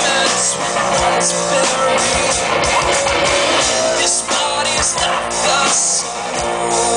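Live rock band playing loudly: electric guitar and drum kit, with a male lead singer singing into the microphone.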